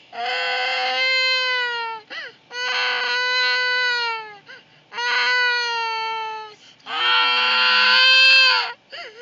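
A young child crying in long, steady wails, four of them, each about two seconds, with short gasping in-breaths between; the last wail is the loudest.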